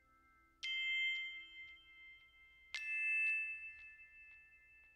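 Background music: two struck bell-like notes about two seconds apart, each ringing on and slowly fading.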